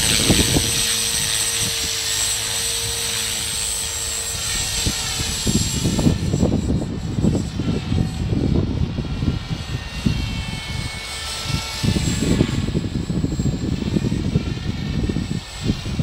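CopterX 450 electric RC helicopter's motor and rotors whining steadily, a high whine over a lower hum, as it lifts off. From about five seconds in, gusty wind rumbles on the microphone and the whine fades as the helicopter climbs away.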